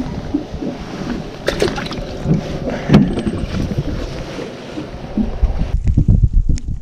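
Wind buffeting the microphone and water noise around a small fishing boat, with a few sharp knocks against the boat about a second and a half, three and six and a half seconds in.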